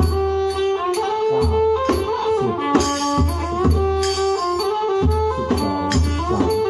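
A kantrum mahori folk ensemble playing a steady tune. A two-string fiddle carries a melody that slides between notes, over low beats on a barrel drum, with bright ticking percussion keeping the beat.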